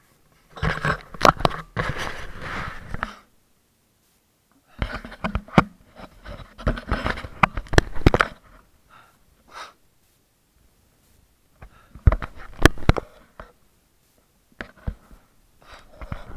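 Close handling noise on a bike-mounted action camera: a jacket sleeve rustling and scraping against the camera in four bursts, with sharp clicks and knocks of the camera housing being touched.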